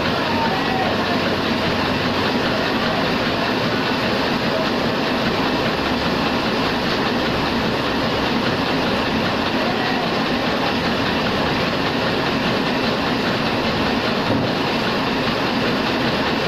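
Heidelberg SORMZ two-colour offset printing press running steadily, a continuous rhythmic mechanical clatter of its sheet feed and rollers.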